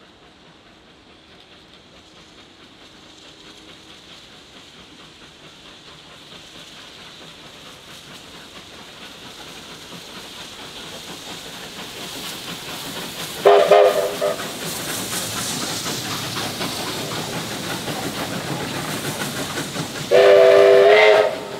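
Victorian Railways R class steam locomotive approaching and running past, its rumble of exhaust and wheels growing steadily louder. Its whistle sounds twice: a short blast about two-thirds of the way through and a longer, louder blast near the end.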